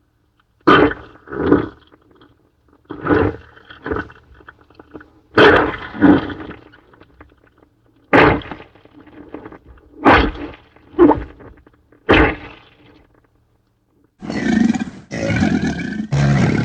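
Plesiosaurus creature sound effect, layered from whale and monster roars: about ten short roars, several coming in quick pairs. From about 14 s it changes to a longer, deeper call broken into three pieces.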